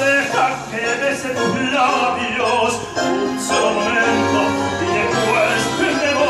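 Male tenor singing in operatic style into a microphone, with long held notes and vibrato, over a recorded musical accompaniment played through a PA speaker.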